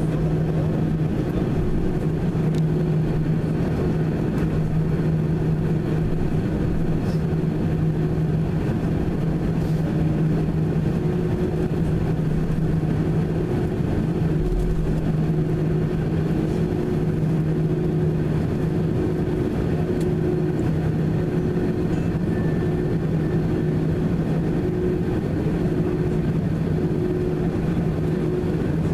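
Airbus A319 cabin noise while taxiing: a steady hum from the jet engines at idle, over a low rumble, heard inside the cabin from a seat over the wing.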